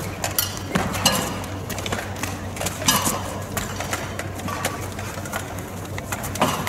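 Irregular knocks and clatter, a few louder strikes about a second in and again near three seconds, over a low steady hum.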